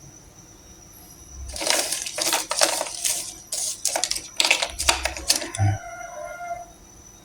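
Loud, irregular clattering and rattling of handled kitchenware, starting about a second in and stopping before the end.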